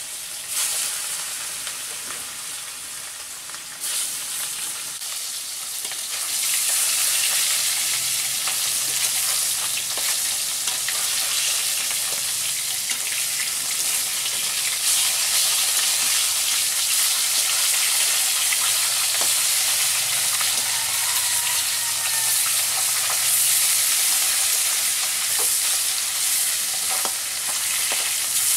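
Pieces of rui fish frying in hot mustard oil in a wok, with a dense sizzle that grows louder about six seconds in and then holds steady. Now and then the metal spatula clicks and scrapes as it turns the pieces.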